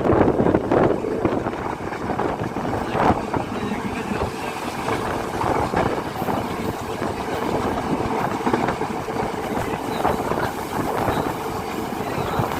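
Yal Devi passenger train running along the track: a steady rumble and rattle of the moving carriage, with occasional knocks.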